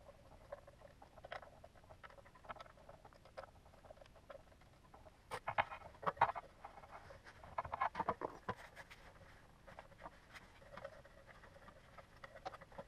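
Small clicks, scrapes and rattles of hand work on a water pump station's pressure switch: a screwdriver on its screws and its plastic cover being handled. There are two louder bursts of rattling near the middle.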